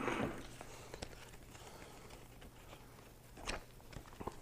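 Faint handling sounds of a knife-sharpening kit's parts: a brief rustle at the start, scattered light clicks, a short scrape about three and a half seconds in, and a couple of sharp clicks near the end.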